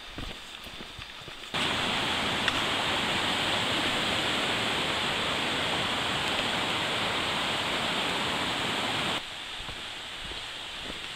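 Steady rushing of a mountain brook, cutting in abruptly about a second and a half in and cutting out just after 9 s. Faint footsteps on the trail are heard before and after it.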